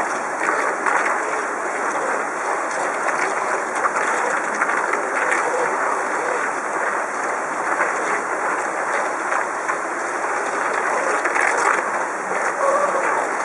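Steady rushing of water pouring over a low river weir.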